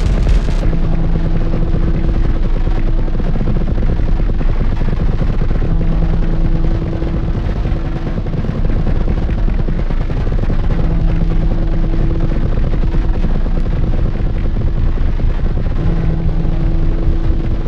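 Glitchy electronic ambient music: a dense, distorted crackling noise texture over a deep drone, with a held low note that returns about every five seconds. The very top end drops out just under a second in.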